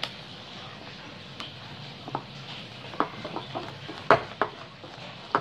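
Wire whisk stirring thick, wet bread dough in a bowl, with scattered clicks and taps as the whisk knocks against the bowl; the sharpest knock comes about four seconds in.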